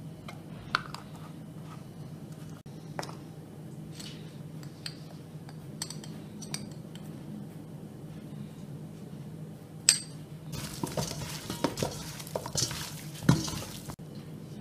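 Metal utensil clinking and scraping against a stainless steel bowl as raw chicken drumsticks are tossed with spices. Scattered single taps come first, the sharpest about ten seconds in, then a few seconds of quick clattering near the end, over a low steady hum.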